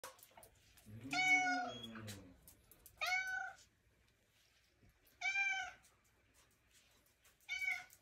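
Tabby cat meowing four times, a couple of seconds apart; the first meow is the longest and loudest.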